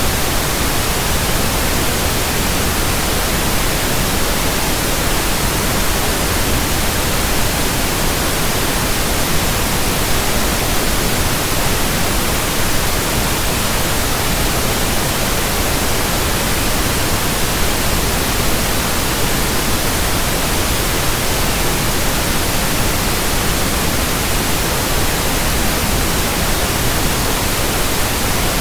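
Steady electronically generated pink noise: an even, unchanging hiss with no breaks.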